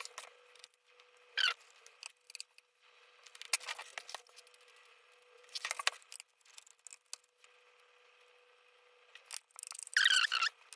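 Small screwdriver working the screws on the underside of a ThinkPad T520 laptop: scattered short clicks and scrapes, with a louder squeaky scraping burst near the end.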